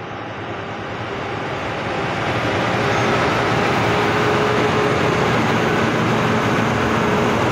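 A heavy truck's BS4 diesel engine pulling hard at a steady speed, getting louder over the first few seconds as the truck draws near, then running steady and loud. The truck is thought to be fully loaded.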